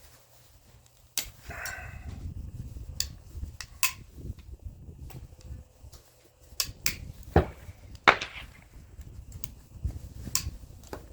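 Irregular sharp clicks, snaps and knocks of hand tools prying and breaking apart a plastic sensor housing, about nine strokes, over a low rumble.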